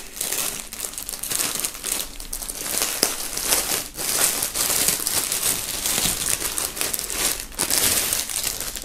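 Thin clear plastic bag crinkling and rustling continuously as a folded sweatshirt is pulled out of it by hand and the emptied bag is crumpled.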